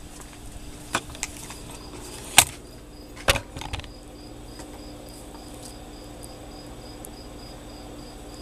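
Cricket chirping in an even rhythm, about three chirps a second. A few sharp clicks or knocks sound in the first four seconds, the loudest about two and a half seconds in.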